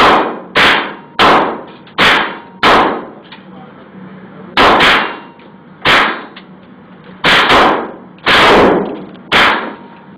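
Ruger .22 rifle firing a string of about a dozen shots, most half a second to a second apart, with a pause of about two seconds near the middle. Each shot is a sharp crack with an echoing tail.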